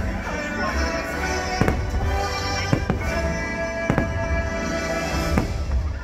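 Fireworks going off in sharp bangs, about five of them roughly a second apart, over loud show music.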